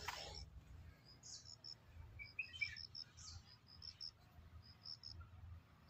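Quiet outdoor ambience: faint, scattered high chirps, a few short notes at a time, over a low wind rumble.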